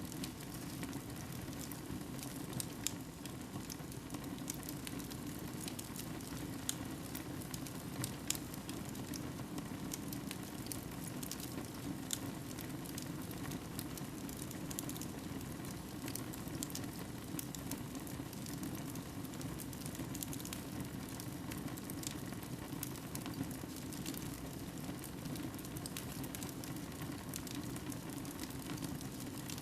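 Fire burning in a fireplace, crackling with scattered sharp pops over a steady low rushing.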